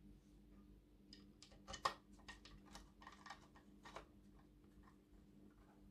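Faint, irregular small clicks and ticks of a screwdriver turning a small screw that fixes the RC truck's cab floor into the top of the plastic-and-metal frame.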